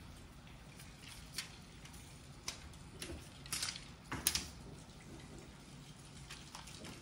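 Light taps and skitters of a ragdoll kitten's paws on a hard floor as it pounces at a feather wand toy, a few separate taps with the loudest about four seconds in as it lands from a leap.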